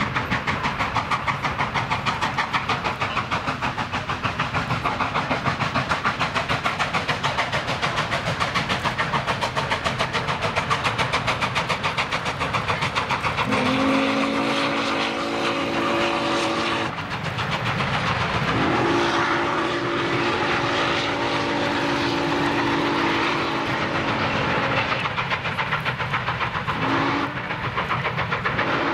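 Norfolk & Western steam locomotive working along with quick, even exhaust chuffs, then blowing its chime whistle in a long, long, short, long pattern, the standard grade-crossing signal.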